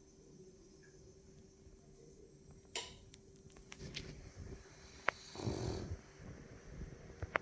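French bulldog snoring in deep sleep: uneven snoring breaths, the loudest about five seconds in, with a few short clicks between them.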